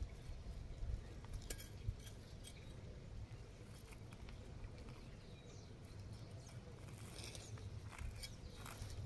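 Hand trowel digging into loose soil, with faint scattered scrapes and crunches and a short run of rustling near the end.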